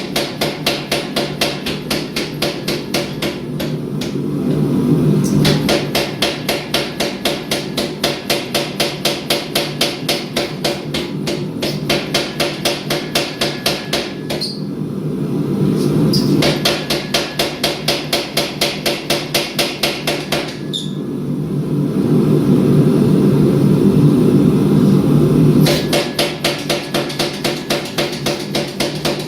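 Rapid, evenly spaced hammer blows on steel, about four or five a second, as the Damascus billet is worked. The blows stop three times while a louder steady rushing noise rises, then start again.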